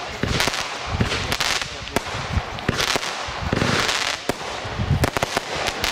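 Panda 'Rauchende Colts' fireworks battery firing: a rapid, irregular run of sharp launch bangs and cracks, with short hissing bursts of stars between them.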